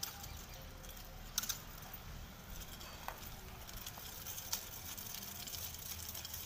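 Wooden nunchaku being swung and spun, giving a few sharp clacks as the sticks knock together or are caught: a quick pair about a second and a half in and another about four and a half seconds in. A steady low rumble runs underneath.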